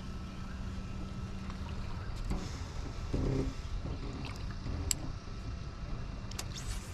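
Open-air noise on a small fishing boat: a steady low rumble of wind on the microphone, with a steady low hum that stops after about two seconds and a few light clicks.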